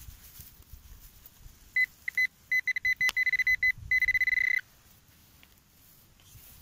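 Metal detector pinpointer beeping: a high pip repeats in short bursts from about two seconds in, quickens, and runs together into a continuous tone for about half a second before stopping. This is the sign of the probe closing on a buried metal target in the dug soil.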